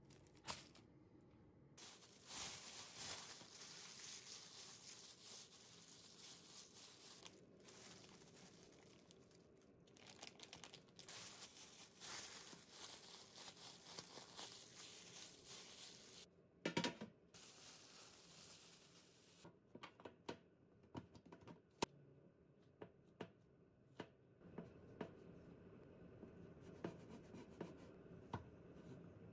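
A plastic bag crinkling and rustling softly as scone dough is squeezed and kneaded inside it, with a brief louder rustle near the middle. After that come scattered light clicks and taps as a plastic dough scraper cuts the dough on a silicone baking mat.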